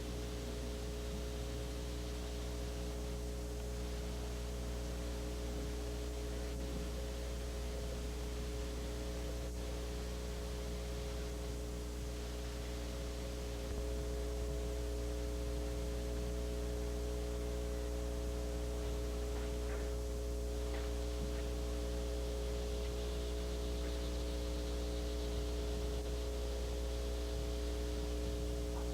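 Steady electrical hum over hiss, with a few faint ticks. Its level steps up slightly about halfway through.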